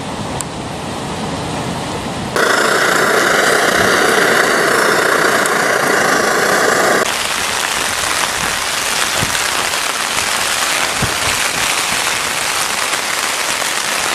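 Waves breaking on rocks for about two seconds, then rain falling on a tent, heard from inside. The rain is louder and denser for a few seconds, then settles to a steady hiss with occasional single drops.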